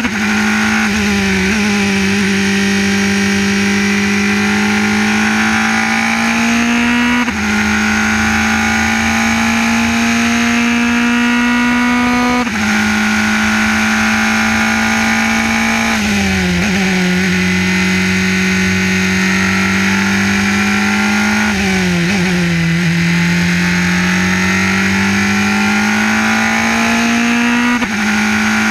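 Formula 3 race car's engine at full effort, heard onboard: the note climbs steadily on the straights, breaks briefly at quick gearshifts, and drops twice when the car brakes and shifts down for corners.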